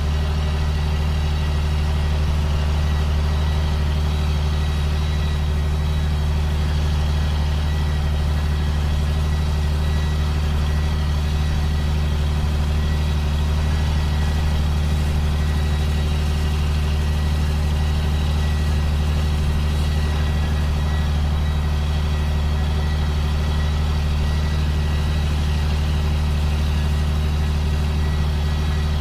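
Steady drone of the 2005 John Deere sprayer's diesel engine running at an even speed, with a thin steady whine above it.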